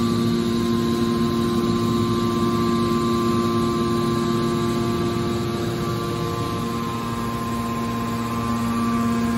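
Hydraulic pump and electric motor of a scrap car baling press running with a steady hum of several pitches, easing slightly past the middle and then picking up again.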